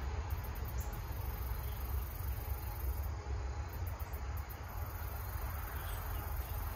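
Insects chirring steadily and high-pitched, typical of crickets at dusk, over a low steady rumble.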